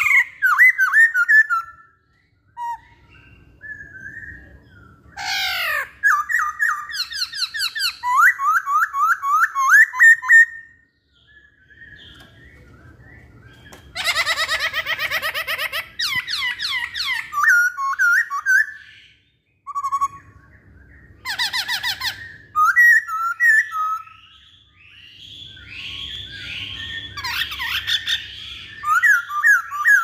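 A caged masked laughingthrush (poksay Hongkong) singing loudly: phrases of fast, repeated whistled notes broken by short pauses, with a couple of harsher squawking bursts in the middle.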